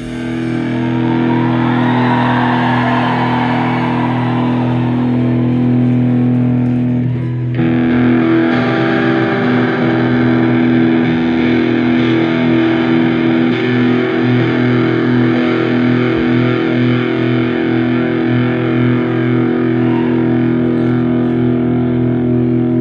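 Live rock band music: a long, held, distorted electric-guitar chord sounding together with a string section of cellos and violins, with no drums. The chord changes about seven and a half seconds in.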